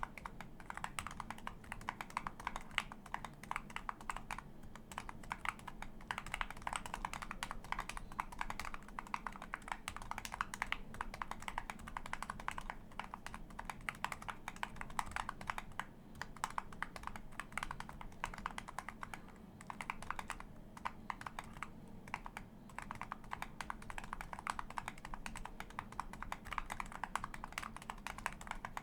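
Continuous typing on a MatrixLab Corsa keyboard fitted with an electro-capacitive (Topre-style) PCB, 49 g rubber-dome switches with 0.3 mm silencing rings and GMK Dualshot 2 keycaps: a fast, irregular stream of muted keystrokes.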